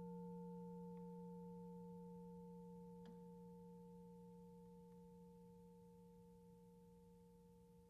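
Final chord of a Musser vibraphone left to ring, its steady tones fading slowly into silence.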